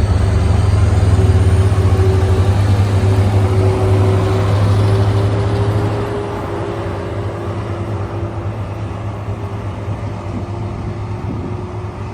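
Diesel train engine running with a deep, steady drone and a hum, the drone dropping away about halfway through, leaving a lighter rumble as the train moves on.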